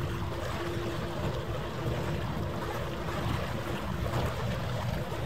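Steady rushing wind noise on the microphone over harbour water, with a faint steady hum that fades out about two-thirds of the way through.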